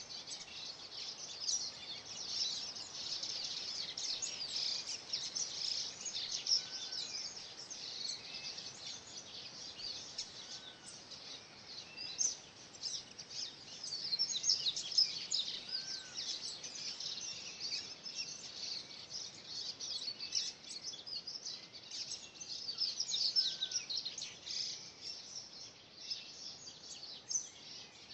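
Chorus of mixed cerrado birds: a dense run of fast, high chirps and trills, with a short, lower whistled note that rises and falls, repeated every few seconds.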